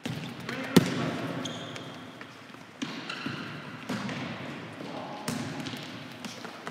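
Futsal ball kicked on an indoor wooden court: one loud sharp kick about a second in, then a few softer kicks and bounces, each echoing in the hall. Short high shoe squeaks and players' shouts go on around them.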